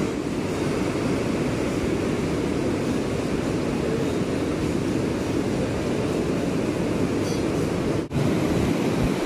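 Steady rushing background noise with no distinct events, dipping briefly about eight seconds in.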